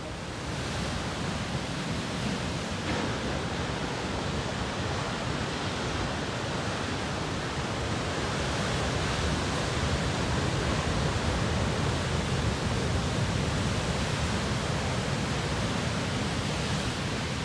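Heavy ocean surf: big waves breaking and whitewater rushing over the shore as one continuous wash of noise, growing a little louder partway through.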